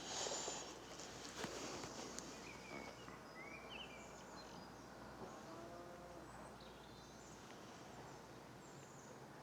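Faint outdoor ambience: a steady low rumble of distant road traffic, a few short bird chirps about three to four seconds in, and a couple of light handling clicks near the start.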